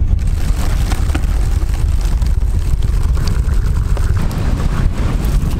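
Strong wind buffeting the microphone: a loud, steady low rumble with a rushing hiss over it.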